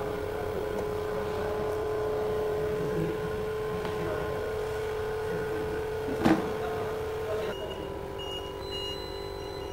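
Vacuum pump of an LCD screen separator machine humming steadily while it holds a phone screen to its pad, with one sharp knock a little past halfway. The hum drops slightly in pitch later on.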